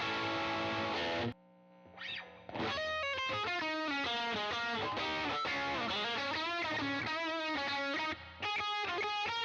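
Single-pickup electric guitar with alder body and maple neck, played with overdrive: a distorted chord rings and is cut off sharply about a second in, then a single-note lead line with string bends and vibrato, pausing briefly near the end.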